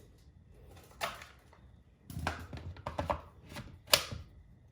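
Clicks and knocks of a battery being fitted into a battery-powered light: one click about a second in, then a quick run of clicks and knocks, the sharpest near the end.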